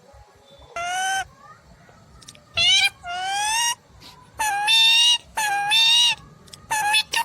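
Indian ringneck parrot vocalising in a string of short, high-pitched, shrill calls, about eight of them, coming faster in the second half.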